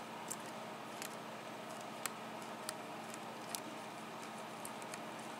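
Faint, irregular clicks of a lock pick lifting and setting pins inside a Yale six-pin pin-tumbler cylinder, over a steady faint hiss.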